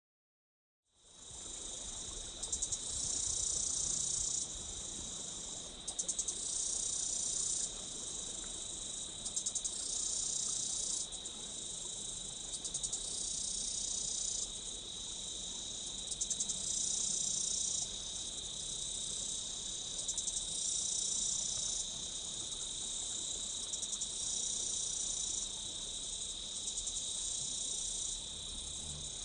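Insects calling: a steady, high, unbroken trill, overlaid by a louder, higher chorus. The chorus swells in about every three to four seconds, each time starting with a few quick ticks. The sound begins about a second in.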